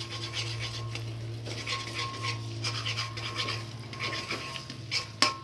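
Metal spatula scraping and stirring egg mixture in a metal wok, in quick repeated strokes, with one sharp metallic tap near the end.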